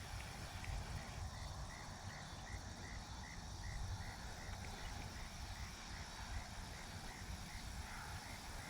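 Low wind rumble on the microphone, with a faint high chirp repeating evenly about two to three times a second from about a second in.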